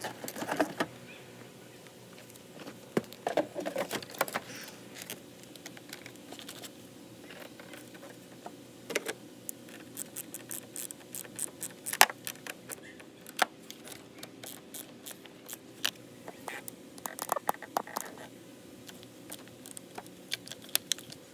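Irregular light clicks and metallic clinks of small hard objects being handled, with one sharper click about twelve seconds in.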